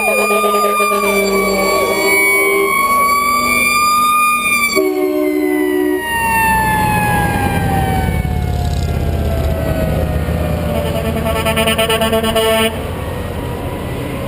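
Fire engine driving past with its siren wailing and horn blasts; the siren's pitch drops as it goes by and fades off. Then heavy trucks rumble past, and a loud horn sounds for under two seconds near the end before cutting off.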